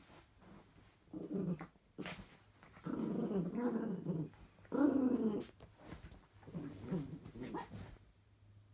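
Small dog growling in four short bouts, the longest about three to four seconds in and the loudest near the fifth second.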